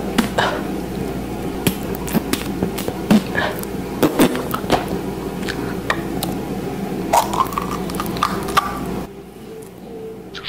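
Scattered clicks and taps from a paint tube being handled, over a steady low hum.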